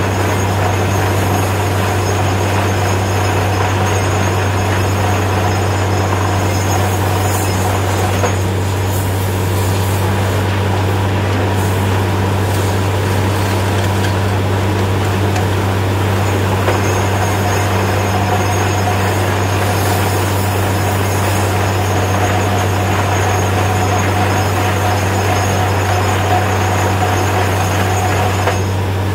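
Truck-mounted borewell drilling rig running under load: a loud, steady drone from the engine and compressor, blowing water and rock cuttings up out of the bore. A faint high whistle sounds for the first several seconds and comes back in the second half.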